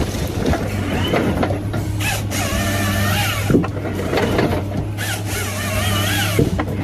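Timber harvester working a log: a steady low engine drone with irregular mechanical knocking and clattering from the head, and wavering high-pitched squeals coming and going.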